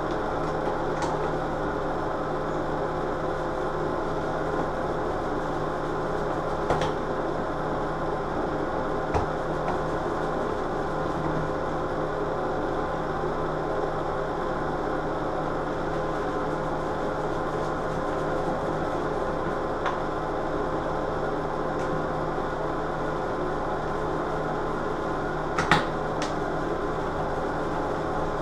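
Steady mechanical hum, with a few light clicks and taps as a wall light switch and its cover plate are handled; the sharpest click comes near the end.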